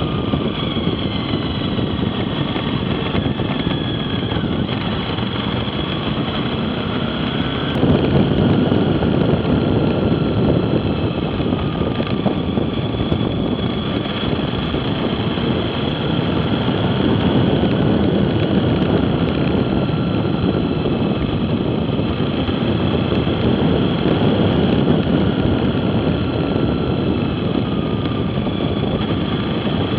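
Motorcycle engine running at road speed with wind noise over it; the engine's pitch rises and falls through the bends, and the sound gets louder about eight seconds in.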